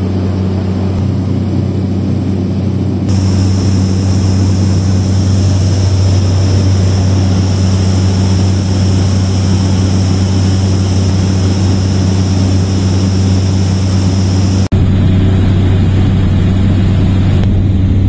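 Cabin noise of a Cessna 208B Caravan in flight: the single Pratt & Whitney PT6A turboprop and its propeller make a loud, steady drone with a low hum and a hiss above it. The hiss changes abruptly twice.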